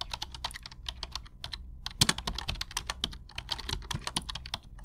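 Keyboard typing sound effect: quick, uneven key clicks, several a second, with a faint low hum beneath.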